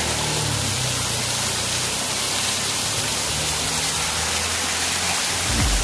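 Waterfall rushing: a steady, even hiss of falling water close by.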